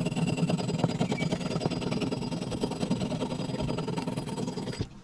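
Hacksaw cutting through the wooden axe handle where it sticks out of the axe head's eye, in continuous sawing strokes that stop just before the end.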